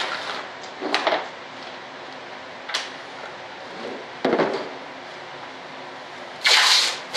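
Knocks and scrapes of a box-shaped canopy mold being handled and turned on a workbench: several short ones spaced a second or so apart, then a louder scrape of about half a second near the end.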